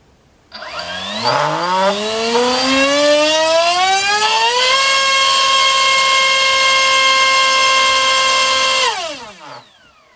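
Turnigy 2836 3200 kV brushless EDF motor spinning a 4.5x4.5 propeller on a thrust stand, powered by a 3-cell battery. Its whine starts about half a second in, rises steadily in pitch for about four seconds, holds at one high pitch for about four seconds, then drops away and stops near the end as the throttle is cut.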